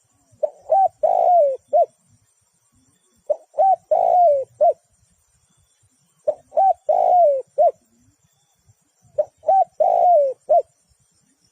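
Spotted dove cooing its song four times, about every three seconds: each phrase is two short coos, a longer falling coo and a final short coo.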